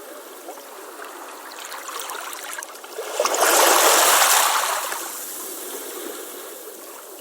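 Ocean waves on a beach: water lapping and trickling, then a wave breaks and rushes in about three seconds in, loudest for a little over a second, and fades back to gentle trickling.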